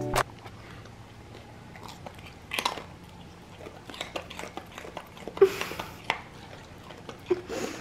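Dog chewing a baby carrot: irregular wet crunches and mouth clicks, with a louder crunch about two and a half seconds in.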